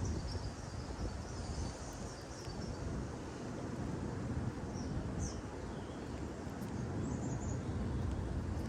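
Outdoor ambience on a riverbank: a steady low rumble of wind on the microphone, with a few short bird chirps now and then.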